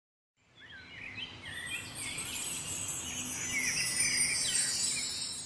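Birds chirping in quick short calls over a high, tinkling chime-like shimmer, fading in about half a second in and fading out near the end.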